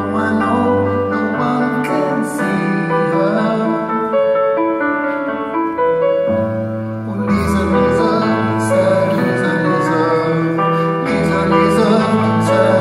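Live piano ballad: piano chords with a singer's voice over them.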